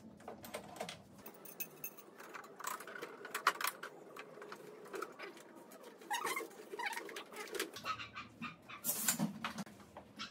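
Clicks, knocks and rattles of a plastic power-tool case and tools being handled and unlatched, with a few faint animal calls mixed in.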